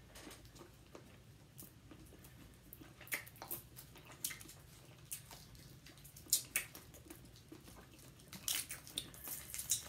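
Bit-O-Honey candy wrappers crackling in fingers as the pieces are unwrapped, with quiet chewing. The crackles come in scattered bunches, densest near the end.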